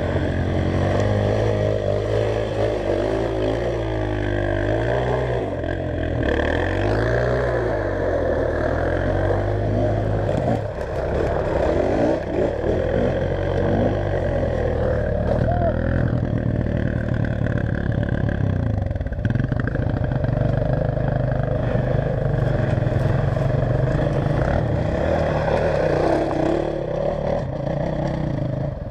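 Enduro motorcycle engine running continuously, its revs rising and falling again and again under changing throttle.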